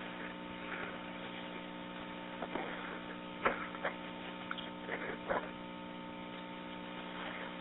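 Steady electrical hum on a narrow-band phone-line recording, with a few faint clicks scattered through the middle.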